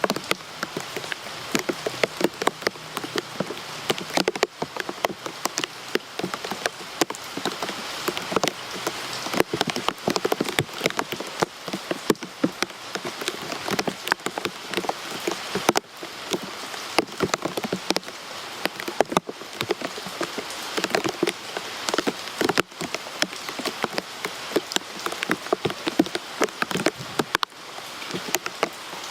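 Heavy rain falling steadily, with a constant stream of separate drops striking close by as sharp little clicks over the hiss of the downpour.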